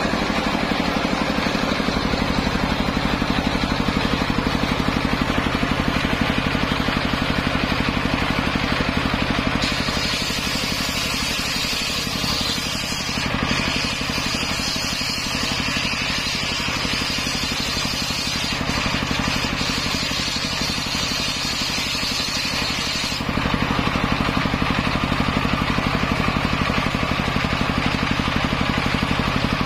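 Car engine driving a homemade circular saw, running steadily. From about ten seconds in until about twenty-three seconds a higher hissing noise joins it while the engine's low note weakens, as the blade cuts through old coconut wood.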